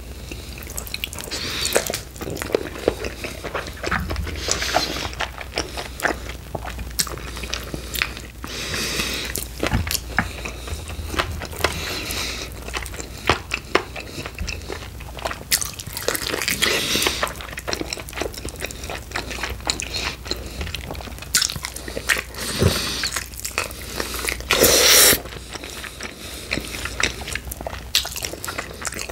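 Close-miked eating of sauced chicken wings: biting, crunching and chewing with many small wet clicks of the mouth. One louder burst of noise comes near the end.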